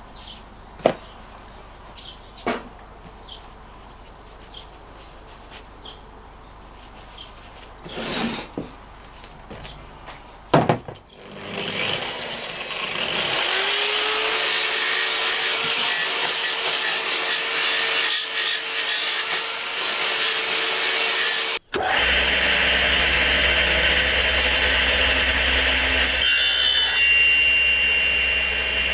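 Handling clicks, then a handheld angle grinder spins up about eleven seconds in, its pitch rising and levelling off, and grinds along a peeled wooden branch. About two-thirds of the way through it gives way to a table saw running steadily, with a small branch fed into the spinning blade near the end.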